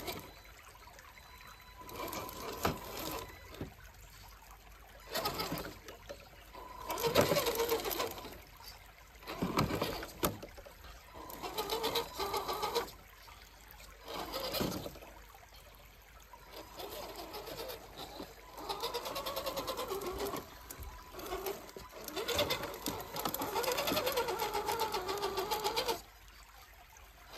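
RC 6x6 crawler truck's electric motor and gears whining in repeated bursts of throttle, the pitch wavering up and down with load. The bursts are separated by short pauses, and the longest runs come in the second half.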